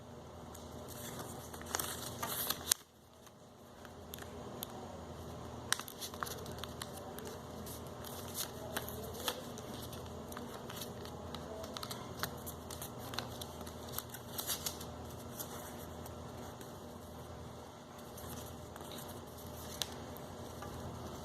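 A sheet of office paper being handled, folded and creased: scattered crinkles, rustles and light taps.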